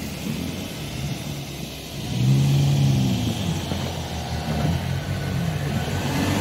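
Four-wheel-drive pickup's engine revving up and falling back in several surges, strongest about two seconds in, as its tyres spin and churn in deep snow: the truck is stuck and fighting for traction.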